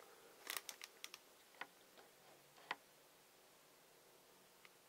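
A few faint clicks and light crinkles from fingers handling a clear plastic bag of model-kit parts. The sharpest click comes a little under three seconds in.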